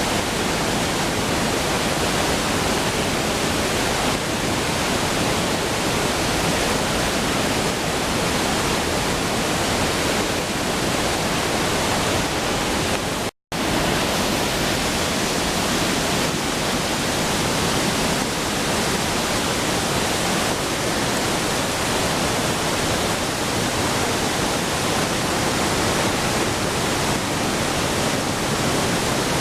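Waterfall's steady rushing noise, cut off for an instant about halfway through.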